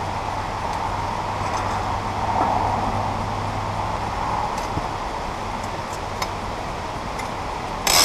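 A steel sawmill band blade being twisted and folded into coils by hand, giving faint scattered metallic ticks and a sharper metal clatter near the end, over a steady background rumble with a low hum.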